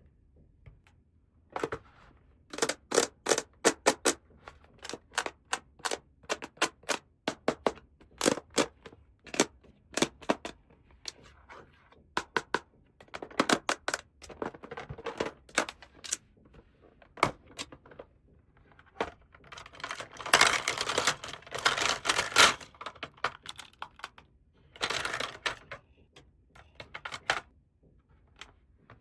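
Small plastic toy pieces of a princess house play set being handled: irregular clicks and taps, with a denser run of rustling and clicking about two-thirds of the way through.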